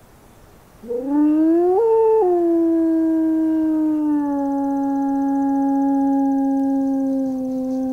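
Recorded howl of a single adult wolf played loudly through an amplified horn loudspeaker. After a quiet second it rises in pitch, peaks briefly, then settles into one long steady note. It is the playback call of a wolf-howling survey, meant to draw a reply from wild wolves.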